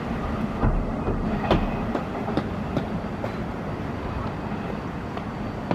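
A train running past on the rails, wheels clacking over rail joints in a series of sharp clicks over a steady rumble, the clacks thinning out in the second half.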